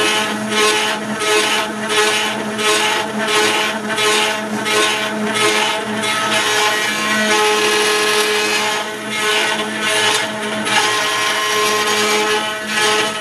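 CNC mill spindle driving a ball-nose end mill through aluminium: a steady spindle whine under a cutting hiss that swells and fades about twice a second for the first five seconds, then runs more evenly as the tool works around the pocket.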